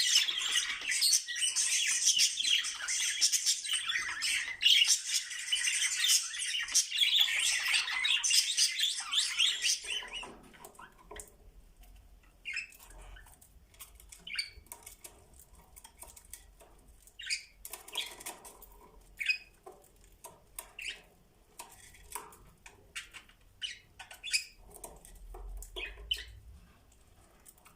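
Budgies warbling and chattering in a dense, high-pitched stream that stops abruptly about ten seconds in. Scattered faint clicks and scratches follow.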